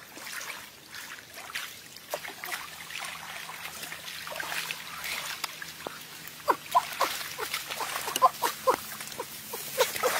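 Hands splashing and sloshing through shallow, muddy floodwater among grass, over a trickle of running water. From about six seconds in, the splashes come quicker and sharper.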